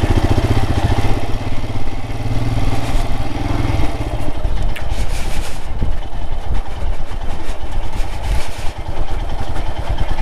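Royal Enfield Himalayan's single-cylinder engine running with a steady, rapid low pulsing.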